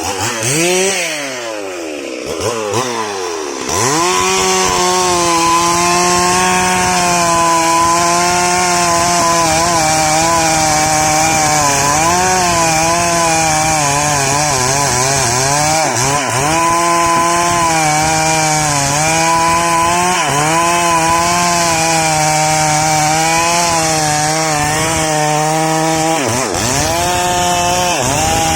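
STIHL MS 382 two-stroke chainsaw revved up and down a few times, then held at high speed under load as it cuts through sengon wood. Its pitch sags and recovers as the chain bites, and the revs swing again near the end.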